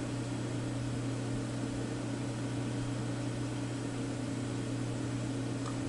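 Steady low electrical hum with a faint hiss, unchanging throughout, with no distinct clicks or other events.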